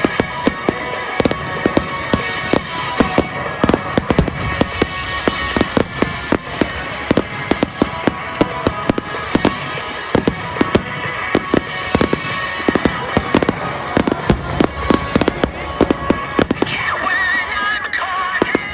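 Fireworks going off in a rapid barrage of sharp bangs and crackles, several a second, over music with long held notes.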